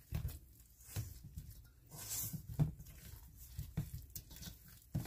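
A spatula stirring a sticky wheat-flour dough in a stainless steel mixing bowl: irregular soft scrapes and squishes as the dough is worked together.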